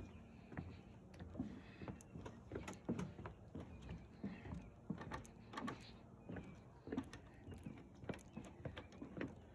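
Footsteps on a wooden boardwalk: a run of soft, uneven knocks, roughly two a second.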